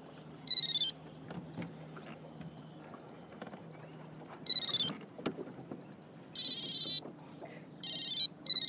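Fishing reel drag buzzing in short, irregular spurts of about half a second as line is pulled off the spool: a hooked salmon running.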